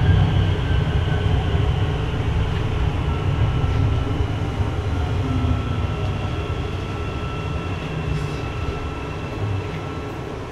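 Line 4-Yellow metro train running, heard from inside the front car: a steady low rumble of wheels and motors with a faint high whine, slowly getting quieter.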